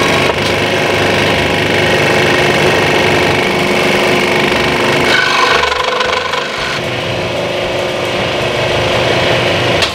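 Wen scroll saw running steadily, its reciprocating blade cutting a wooden board. The sound shifts in character about five seconds in.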